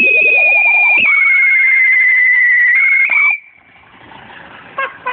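Whistling firework giving one long, loud, high whistle that slowly falls in pitch, with a lower wavering tone beneath it, and cuts off abruptly about three seconds in. A few small cracks follow near the end.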